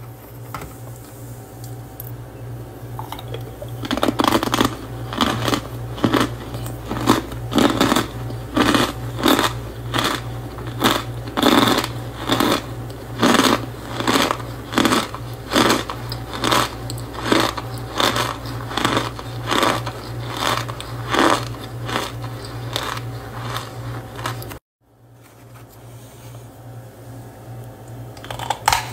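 Blocks of cornstarch crunching as fingers press and crush them, with squeaky crunches repeated about twice a second over a steady low hum. The crunching stops abruptly about 25 seconds in, followed by softer crumbling.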